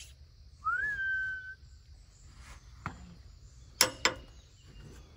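A single clear whistled call, rising briefly and then held on one note for about a second, followed near the end by two sharp clicks in quick succession.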